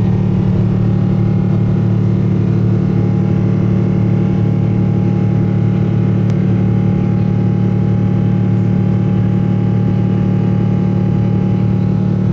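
Boeing 777 engines heard from inside the passenger cabin during the climb after takeoff: a loud, steady low drone with several steady tones above it, a higher tone joining about three seconds in.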